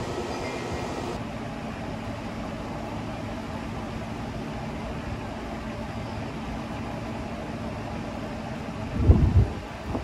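Steady rushing outdoor noise with a faint, even low hum. About nine seconds in, a brief gust of wind buffets the microphone.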